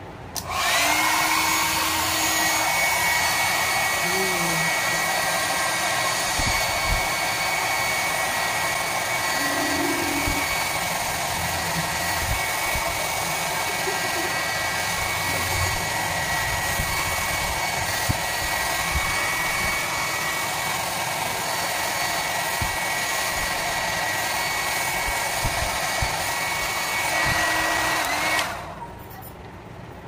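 Compact handheld hair dryer switched on, blowing steadily with a rush of air and a high motor whine, then switched off near the end.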